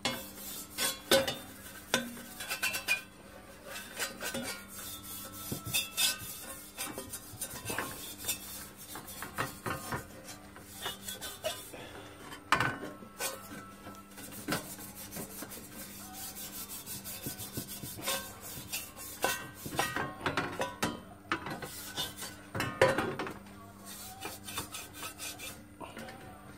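Stainless-steel scrubber pad on a wooden handle scraping and rubbing around the inside of a hot copper pan in irregular strokes, wiping the molten tin lining during retinning. There are sharper, louder scrapes now and then.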